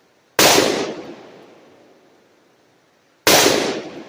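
Two gunshots about three seconds apart during target practice, each a sharp crack that dies away over a second or so.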